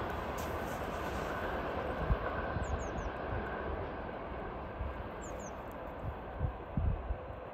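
Intermodal freight train rolling away along the track, a steady rumble of wheels on rails that slowly fades as it recedes. A few low thumps stand out about two seconds in and again near the end.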